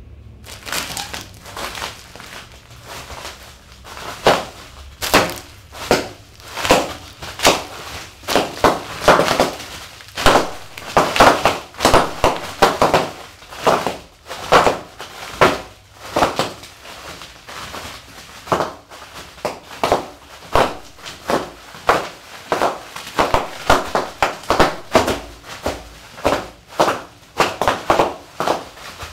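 Bare feet stepping on and crushing a pile of foil-wrapped fortune cookies: irregular crunching and crinkling of cookies and wrappers underfoot. Soft and sparse at first, it grows louder and more frequent about four seconds in.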